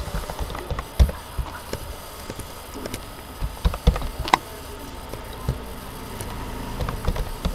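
Irregular computer keyboard key presses and mouse clicks, a few sharper taps about a second in and around four seconds in, over a steady low hum.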